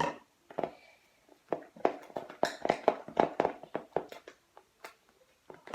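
Spoon stirring slime in a bowl, a quick run of short strokes about four a second. The slime is being worked as the contact lens solution activator thickens it, so it is getting harder to stir.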